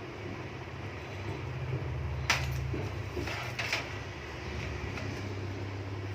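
Computer cables and parts being handled inside a PC case: a sharp click a little over two seconds in, then a scrape and another click about a second later, over a steady low hum.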